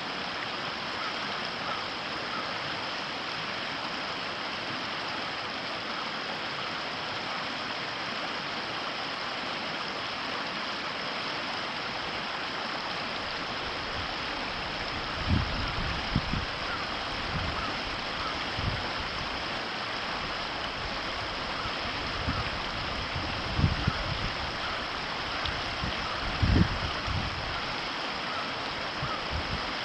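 The Ōtakine River's water flowing with a steady rush. From about halfway through, irregular low thumps come in, a few louder ones near the end.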